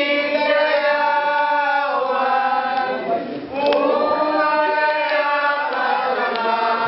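A group of people singing together in long held notes, with a short break about three and a half seconds in.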